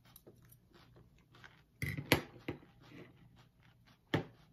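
Two people chewing mouthfuls of creamy coleslaw, with scattered small wet mouth clicks and a few sharper clicks of metal forks. The sharper clicks are loudest about two seconds in and again near the end.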